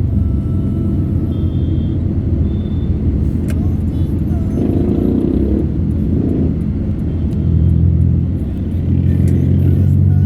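Road vehicle's engine running steadily while driving in traffic. Its note steps up twice near the end as it speeds up.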